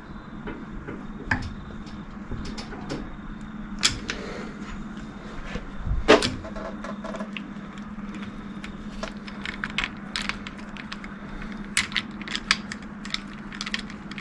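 Long-handled socket wrench working the bolts on a Ford PX Ranger rear diff centre held in a vise: scattered metal clicks and clanks, the loudest a sharp knock about six seconds in, over a steady low hum.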